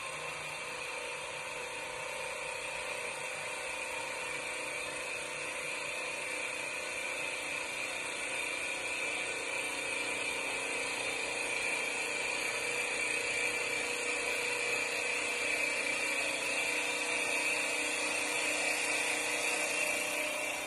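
CNC wood lathe running its automatic turning program, the turning tools cutting the spinning wood blank: a steady whirring hiss with a constant high whine that grows slightly louder over time.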